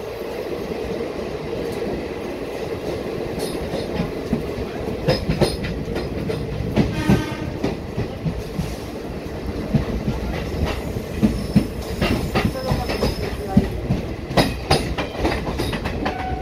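Passenger train wheels rolling slowly over the rails, heard from the coach doorway: a steady rumble with irregular clicks and clunks over rail joints and points, which grow more frequent after about four seconds. A brief pitched squeal or tone about seven seconds in.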